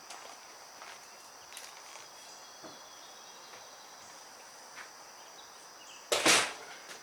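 A steady high-pitched insect drone, like cicadas or crickets, over quiet background noise with a few faint clicks. About six seconds in, a brief loud rushing noise lasts about half a second.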